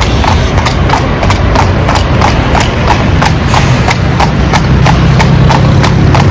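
Hooves of two carriage horses pulling a calèche, clip-clopping on the asphalt road in a steady beat of about three strikes a second, over a low rumble of street traffic.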